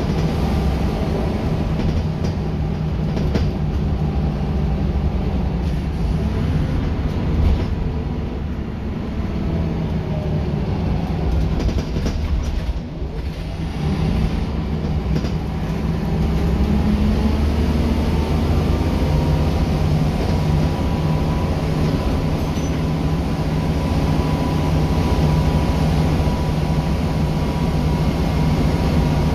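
Scania L94UB single-deck bus heard from inside the saloon while under way: a steady engine and drivetrain drone with road rumble. The level drops briefly about thirteen seconds in, then the bus runs louder, with a faint high whine that climbs slowly in pitch.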